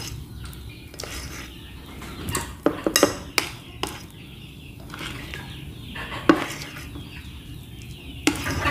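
A spoon stirring thick banana-bread dough in a glass bowl, clinking against the glass at irregular intervals, with a run of clinks a few seconds in.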